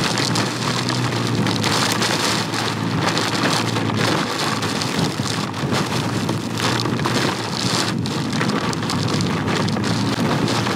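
Heavy thunderstorm rain, with hail in it, pelting a rider on a Can-Am Ryker three-wheeler while under way: a loud, dense hiss crowded with sharp hits, over a steady low hum underneath.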